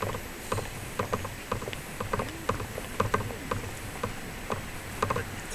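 Footsteps on hard pavement: short sharp clicks, about two a second and slightly uneven.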